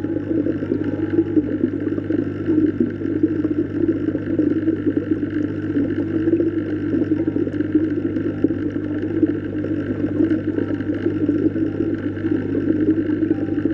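Steady, muffled underwater noise with a low, constant hum beneath it. A few faint short tones float above it.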